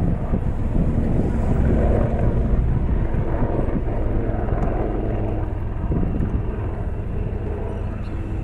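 Royal Navy AW159 Wildcat helicopter flying a display pass: a steady drone of rotor and turbine that eases slightly toward the end.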